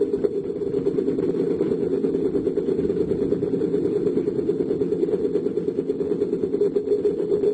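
Diesel engine of heavy construction equipment running steadily, a low drone with a fast, even pulse.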